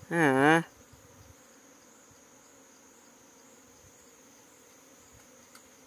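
A short wavering vocal cry right at the start, then a faint, steady high-pitched insect drone.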